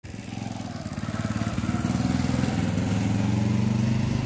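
Motorcycle engine running at low speed, a steady even drone that grows a little louder over the first second and a half.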